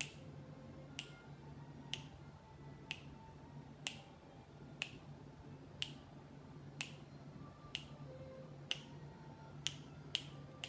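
Finger snaps about once a second, a steady beat to pace a recitation with one month named per snap, quickening to about two a second near the end.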